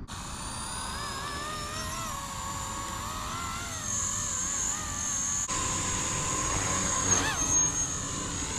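Electric Blade CP235 collective-pitch RC helicopter in flight: a steady motor and rotor whine whose pitch wavers up and down as the sticks are worked, with a quick rise and fall in pitch about seven seconds in. It is being flown with its SAFE stabilisation switched off.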